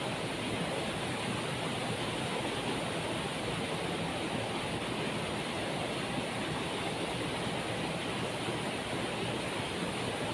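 Waterfall rushing in a steady, unbroken roar of water.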